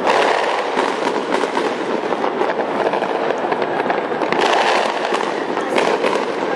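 Many fireworks and firecrackers going off at once: a dense, unbroken crackle of overlapping pops and bangs.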